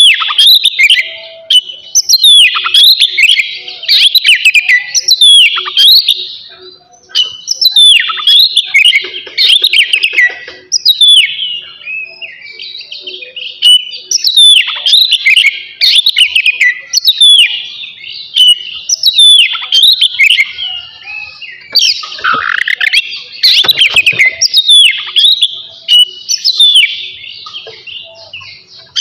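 Oriental magpie-robin (kacer) singing a fast, unbroken run of loud whistled notes and quick downward-sweeping phrases, with a short lull about seven seconds in.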